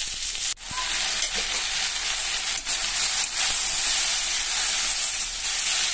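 Sliced onion, tomato and capsicum sizzling in hot mustard oil in an aluminium kadai, stirred with a metal spatula. The sizzle is a steady hiss that cuts out briefly about half a second in.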